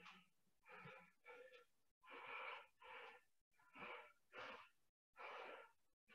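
Faint, hard, fast breathing of a man exerting himself in a strength-endurance set, short breaths in and out through the mouth in a steady rhythm, about two a second.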